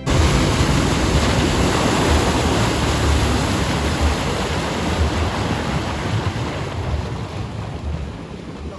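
Strong wind buffeting the microphone over rushing water, a loud, steady rush with a deep rumble that eases slightly near the end.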